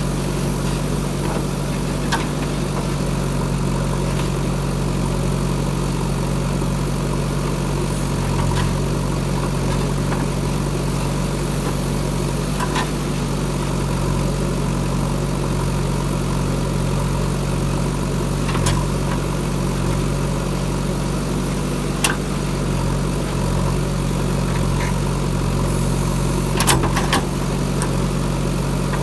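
Diesel engine of a JCB 3DX backhoe loader running steadily at idle, with a few short sharp clicks or knocks now and then.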